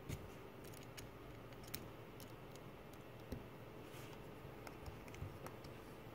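Faint, irregular small metallic clicks and ticks of a small Torx screwdriver and tiny screws being fitted into a hard drive's circuit board.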